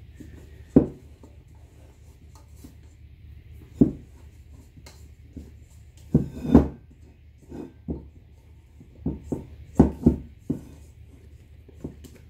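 Hands working and scraping a soft risen bread dough out of a stainless steel mixing bowl, with dull thumps and knocks every few seconds as the dough is pressed against the metal and the bowl is tilted and bumped on the wooden table, several in quick succession about six and ten seconds in.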